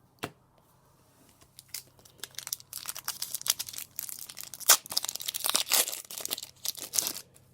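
Foil wrapper of a Pokémon trading-card booster pack being torn open and crinkled: a dense run of crackling that starts about two seconds in and lasts about five seconds.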